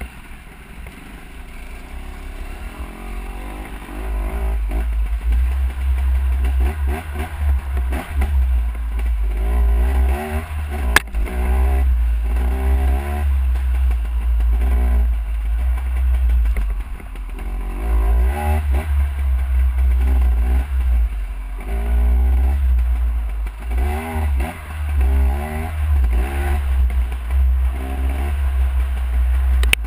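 Dirt bike engine under way, its pitch rising and falling over and over as the rider works the throttle and gears, over a heavy low rumble of wind on the bike-mounted camera. A single sharp knock sounds about eleven seconds in.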